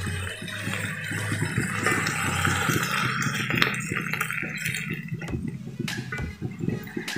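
Bok choy and garlic sizzling in a wok while a spatula stirs and scrapes them, with scattered clicks and knocks of the spatula on the pan. The hiss of the frying is strongest in the middle and eases off after about five seconds.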